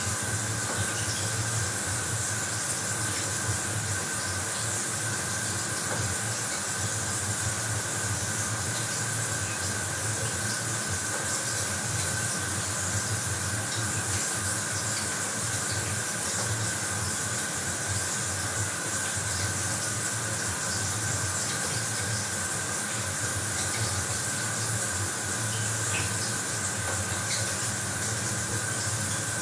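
Bathroom shower running: a steady hiss of water spraying and splashing, with a faint steady tone running through it.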